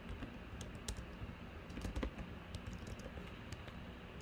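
Faint, irregular keystrokes of typing on a computer keyboard.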